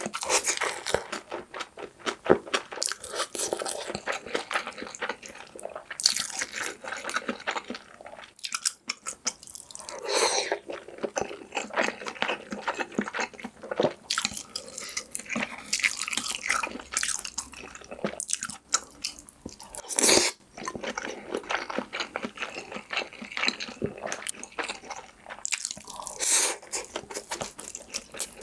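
Close-miked chewing and wet mouth sounds of a person eating rice and Spam kimchi-jjim (braised kimchi stew), a dense uneven run of small clicks.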